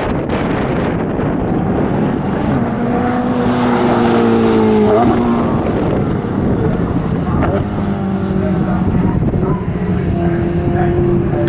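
Ferrari 488 GTB's twin-turbo V8 accelerating on a circuit, its note climbing and then breaking off at a gear change about halfway through. The engine is heard again, steadier, near the end. Wind buffets the microphone throughout.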